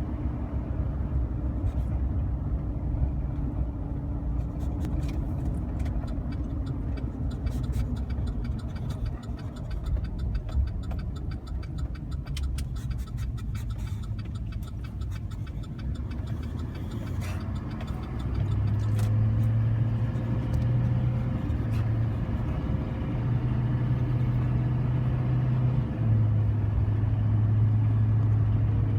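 A running engine: a steady low rumble with scattered clicks in the first half, and a strong steady low hum that sets in about two-thirds of the way through.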